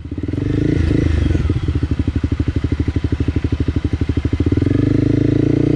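Honda CRF dual-sport motorcycle's single-cylinder four-stroke engine running on a rough trail, with a fast, even firing pulse.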